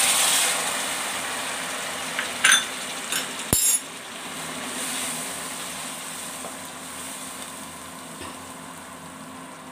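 Hot water poured into a kadai of oil-fried spice paste: a loud sizzling hiss as the water hits the hot oil, dying down over several seconds to a quieter simmer. A few short clinks and scrapes of stirring come about two to four seconds in.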